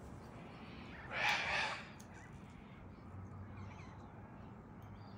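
A bird gives one harsh, raspy squawk about a second in, lasting under a second.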